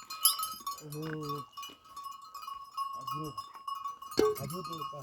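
A flock of sheep bleating: three separate wavering bleats, about a second in, about three seconds in, and a longer one near the end, over a steady high tone and faint ticking.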